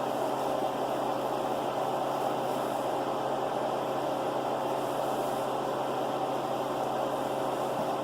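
Steady mechanical whir and hum that does not change in level or pitch.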